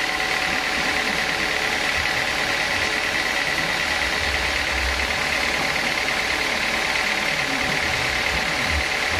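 Home-built band sawmill running steadily with a high whine, idling while a teak log is loaded and not cutting.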